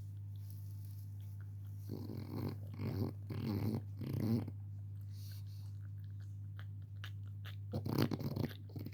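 French bulldog snoring in its sleep: four snores in quick succession about two to four and a half seconds in, then another near the end, over a steady low hum.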